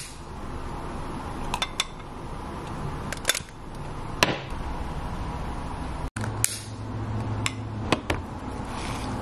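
A handful of sharp clicks and light glass taps spread through, as glass-jar candles are lit with a long lighter and set down on hard counter and table surfaces.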